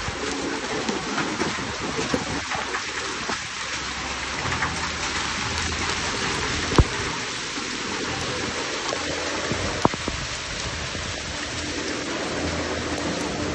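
Rain and hail falling on wet paving and grass: a steady hiss of impacts, with two sharp knocks about seven and ten seconds in.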